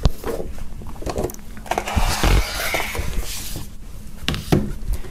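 Cardboard box and packaging handled on a wooden table: a click, heavy thumps about two seconds in, then a stretch of rustling and scraping, and a few more knocks near the end.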